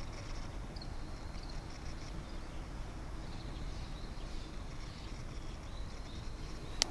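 Outdoor field ambience picked up by a DJI Osmo+ through a FlexiMic, dominated by a steady low rumbling noise on the microphone. Faint high chirps come through in the first half, and there is a sharp click near the end.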